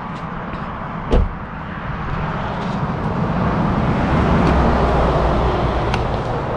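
Road traffic passing, with a heavy low rumble building through the middle as a large vehicle goes by. There is a sharp thump about a second in, and light plastic clicks near the end as a car's fuel filler flap is pushed and springs open.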